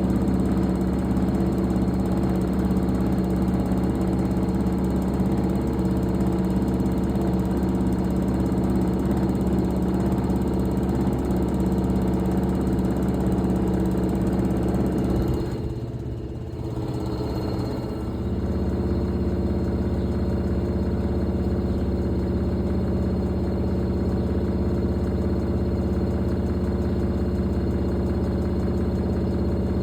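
Fisher & Paykel Pride MW511 washing machine running with a steady mechanical hum. About half-way through the sound eases off for a couple of seconds, then the hum picks up again.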